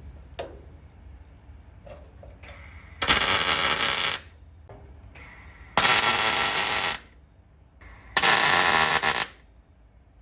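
Welder laying three short welds on car body sheet steel, joining the rear panel to the lower parcel shelf: three bursts of about a second each, a second or so apart.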